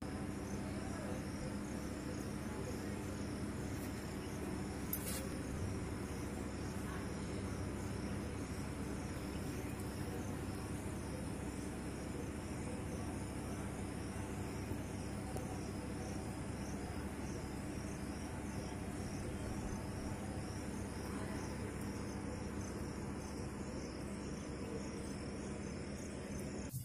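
Outdoor ambience of insects chirping in a steady, high, evenly pulsing chorus, over a low steady hum.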